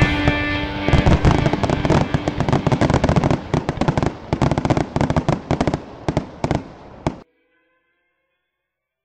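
Aerial fireworks going off in rapid succession, a dense run of bangs and crackles several a second that thins out and grows quieter, then cuts off abruptly about seven seconds in.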